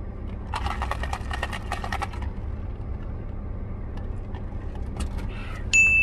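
Ice rattling in a plastic iced-coffee cup as it is shaken, for about a second and a half, over a steady low hum from the car. Near the end a sudden high ding rings out, the loudest sound, and fades away.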